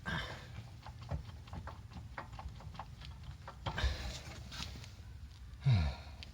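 Scattered light clicks and knocks of the Volvo V70 XC's driver-side front axle being tugged and wiggled while it stays stuck in place, with a heavier knock about four seconds in. A short grunt near the end.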